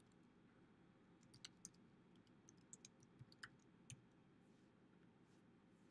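Faint typing on a computer keyboard: a short run of about a dozen keystroke clicks, starting about a second and a half in and ending about four seconds in.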